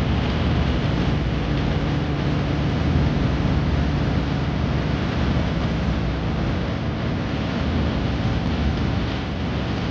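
Steady wind rushing and rumbling across the microphone, with no break.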